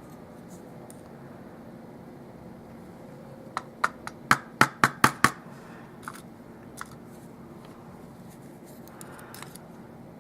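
Small sharp clicks and taps as the top pins and springs are taken out of a disassembled Euro lock cylinder: a quick run of about seven clicks in the middle, then two fainter ticks.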